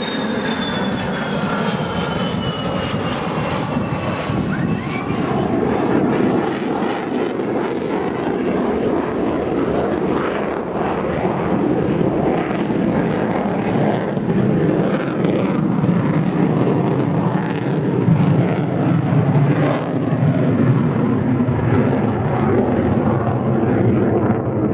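An aircraft's engines as it flies past, a high whine falling in pitch over the first few seconds, then a loud, rough rumble that swells and holds.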